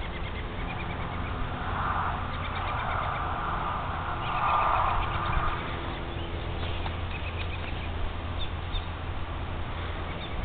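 Small birds chirping in short repeated calls over a steady low hum, with two louder noisy rushes about two and four and a half seconds in.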